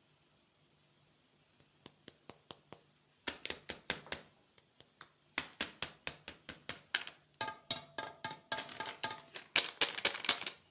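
Rapid sharp taps and clicks from hands handling candy packaging, several a second. A few light ticks come about two seconds in, then louder, denser tapping with short pauses; some taps ring briefly, as on a hard container.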